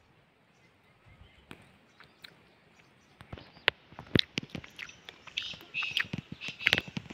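Irregular crackling and snapping of dry grass and brush underfoot and against the body. It starts about three seconds in and grows busier towards the end.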